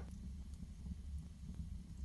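Wood fire burning in a fireplace: a steady low rumble of the flames with scattered crackles and pops, one sharper pop right at the start.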